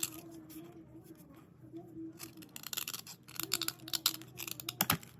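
Dry white slate pencils being scraped and rubbed clean: quick scratchy strokes coming in bunches, busiest in the second half, with a sharp click just before the end.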